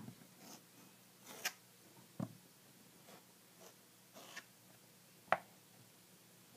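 A hand tool cutting and scraping through a thick slab of clay on a work table: faint scratchy rubbing broken by a few short taps, the sharpest about five seconds in.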